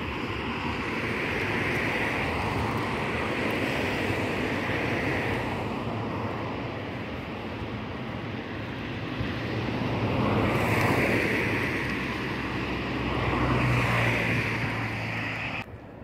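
Wind rush and road noise of a moving car, with a low engine hum underneath. It swells twice in the second half, then cuts off suddenly just before the end.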